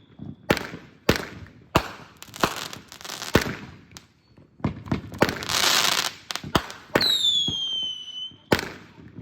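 A multi-shot firework going off: a string of sharp bangs about every half second to second, a crackling hiss in the middle, and a whistle falling in pitch about seven seconds in, followed by another bang.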